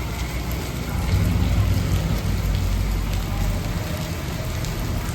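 Steady rain falling, with the low rumble of street traffic underneath.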